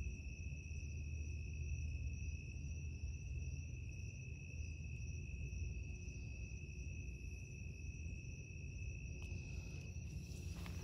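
Crickets trilling in one steady, unbroken high note, over a low rumble. A few clicks come in near the end.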